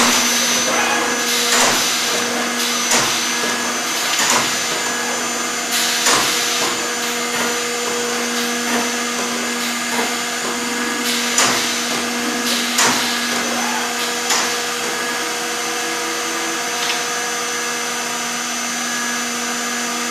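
Multi-spindle CNC panel machine (Accu-Systems VX) running its high-speed router/drill spindles with a steady whine, broken by short bursts of cutting noise every second or two as the bits plunge into and cut the wood panels. The bursts thin out in the second half.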